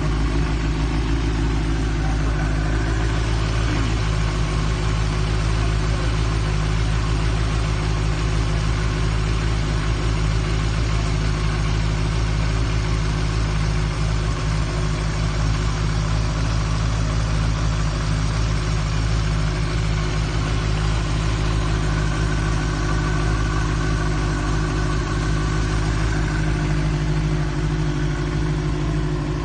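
2021 Benelli TNT 600i's inline four-cylinder engine idling steadily through its stock exhaust.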